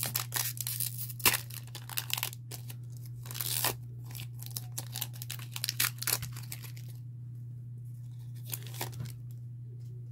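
Foil Pokémon booster pack wrapper being torn open and crinkled, a dense run of crackling for about seven seconds that thins to a few faint rustles near the end.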